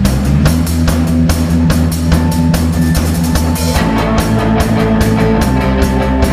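A live rock band playing loud: drum kit keeping a dense, steady beat under electric guitars and fiddle. A little under four seconds in, the bass line shifts to a new pattern and a held higher note comes in.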